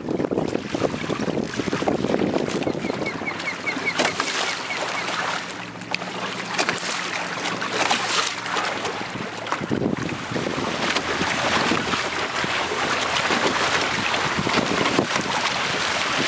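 Water rushing and splashing along the hull of a Hobie trimaran sailing kayak under sail, with wind buffeting the microphone.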